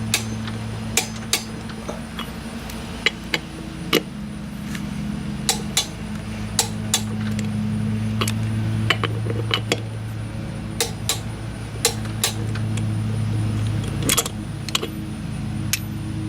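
Scattered sharp metallic clicks and clinks of a socket and torque wrench being worked on the Kubota BX2670's wheel lug bolts, irregularly spaced, over a steady low hum.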